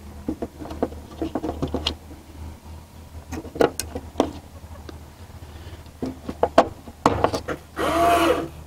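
Batteries being fitted into an automatic chicken door opener: a run of small plastic clicks, taps and handling sounds. Near the end comes a short pitched call.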